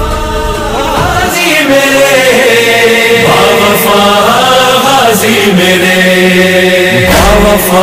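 Music: a chanted vocal holding long notes that slide up and down over a steady drone, with a few brief sharp hits.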